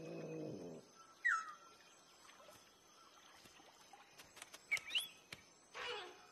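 Cartoon owl chicks cheeping: a short falling chirp about a second in, then a few quick rising chirps with light clicks around five seconds, after a low call fades out at the start.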